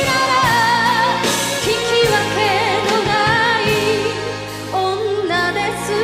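Enka song: a woman singing held, wavering notes with vibrato over instrumental backing.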